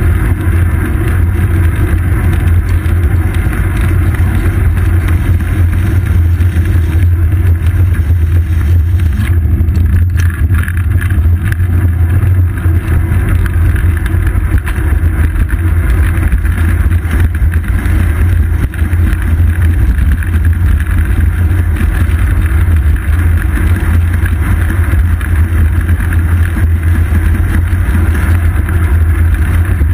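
Steady, loud low rumble of wind and road vibration picked up by a seat-post-mounted GoPro Hero 2 on a moving road bicycle.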